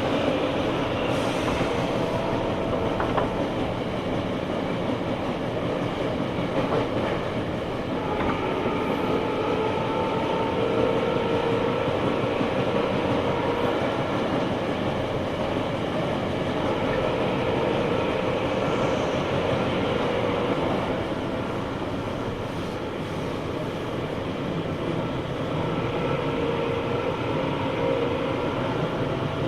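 Tobu 9000 series electric train (car 9206, armature-chopper control) running, heard from on board: a steady rumble of wheels on rail under a motor whine of several tones that waver and slowly shift in pitch. This car's motor sounds abnormal for the series, as if fitted with a different traction motor.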